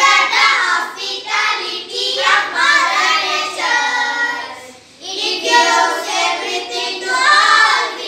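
A small group of children singing an English rhyme together in unison, phrase after phrase, with a short pause for breath about halfway through.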